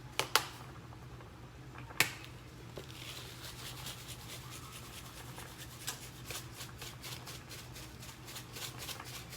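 A seasoning shaker of garlic salt is shaken over raw chicken. There is a sharp click about two seconds in, then from about six seconds a steady rhythm of about three rattling shakes a second. A faint steady hum runs underneath.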